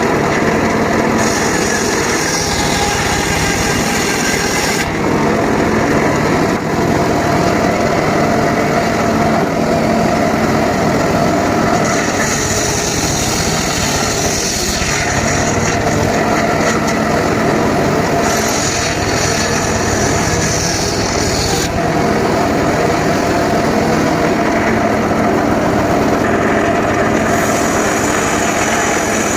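Engine-driven home-built circular saw running steadily while sawing teak. A higher hiss comes and goes several times over the hum of the motor.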